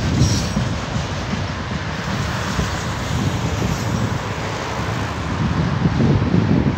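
Canadian Pacific autorack freight cars rolling past: a steady rumble of steel wheels on the rails.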